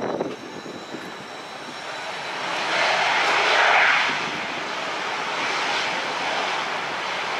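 Two Kawasaki T-4 jet trainers' F3 turbofan engines running on the runway. The jet noise swells to a peak about three to four seconds in, then holds steady: the engines being run up for takeoff.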